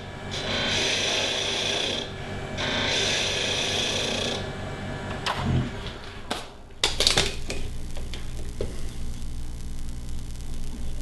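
Turning tool scraping against a spinning mahogany spoon handle on a wood lathe, two passes of hissing cutting noise over the lathe's steady hum. About halfway through the cutting stops, followed by a few sharp clicks and rattles and then a steady low hum.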